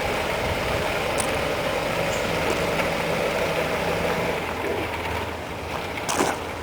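The 1926 Morris Cowley's four-cylinder side-valve engine running steadily on the bare rolling chassis. A short sharp click comes about six seconds in, and the sound cuts off suddenly at the end.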